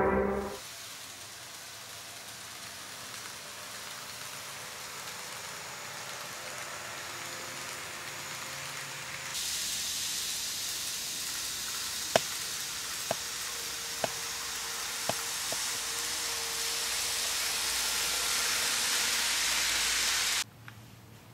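N-scale model trains running on a layout's track: a steady hissing rumble that steps up louder about nine seconds in, with a handful of sharp clicks around the middle.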